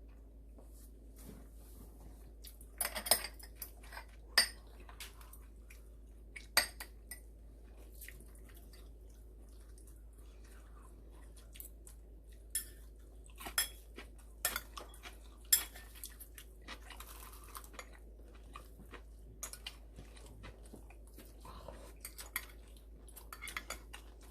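Eating utensils clinking and tapping against bowls and dishes during a meal, in scattered sharp strikes with quiet chewing between.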